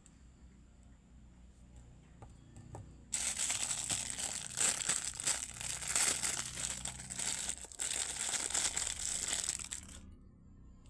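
Packaging crinkling and tearing as a package is unwrapped, starting about three seconds in, with a brief pause, and cutting off suddenly near the end.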